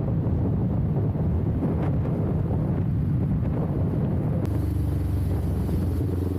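Heavy wind buffeting on an Insta360 One R's internal microphone while riding a Kawasaki Ninja 400: a loud, gusting low rumble that nearly buries the engine. About four and a half seconds in the buffeting eases and the bike's parallel-twin engine comes through as a steady tone.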